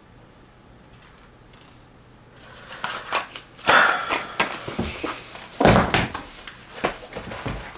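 Sneakers being handled: rustling and several dull thunks as a shoe is picked up, turned over and knocked about. This starts about two and a half seconds in, after a quiet start.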